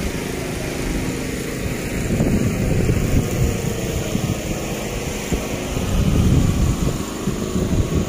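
A motor running steadily with a low hum, with louder irregular low rumbles about two seconds in and again around six seconds.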